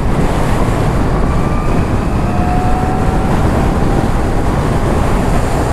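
Wind rushing over the microphone and road noise while riding a 2022 Zero FXE electric motorcycle at speed, with no engine sound. A faint rising whine runs through it from about one to four and a half seconds in.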